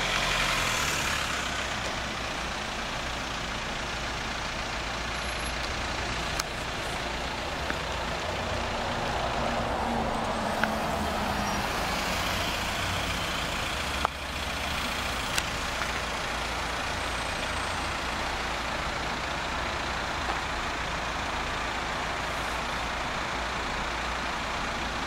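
Steady city road traffic noise from passing cars and buses, with a few short sharp clicks.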